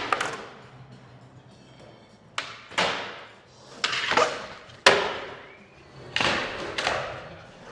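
Skateboard slappy grinds on a concrete parking block: a run of sharp knocks as the trucks and board slap onto the block, each followed by a scraping grind that fades out.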